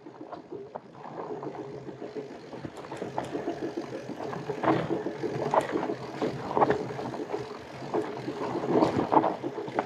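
Fatbike rolling along a trail: a steady rumble of the wide tyres on the ground, with scattered clicks and rattles, getting louder over the first seconds.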